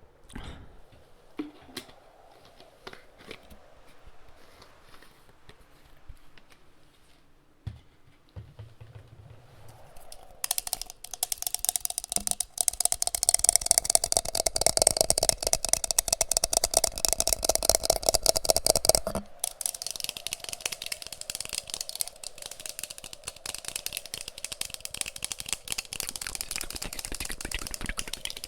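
Close-miked ASMR tapping with the fingers on an object. A few scattered taps come first, then from about ten seconds in a dense, rapid run of taps that is loudest until about nineteen seconds in and carries on more softly after.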